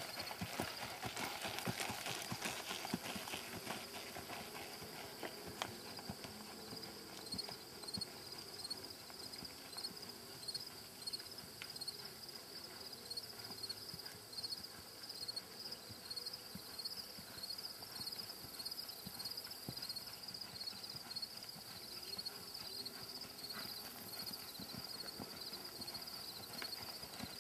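Hoofbeats of a sorrel Quarter Horse gelding jogging on an arena's dirt footing, an ongoing run of footfalls that is loudest in the first few seconds. A high chirp repeats about twice a second behind them.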